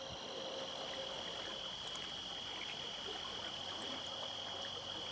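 A trout stream running steadily, with a constant thin high-pitched tone over the rush of water.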